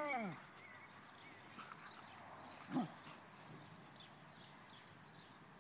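Vizsla puppy whining: a long call dies away with a falling pitch just after the start. About three seconds in comes a short yelp that drops in pitch.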